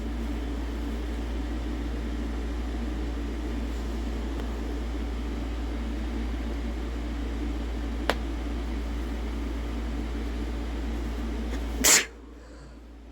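Steady background hum, then one sharp human sneeze near the end, brought on by chhinkni, a sneeze-inducing herb. A faint single click comes about eight seconds in.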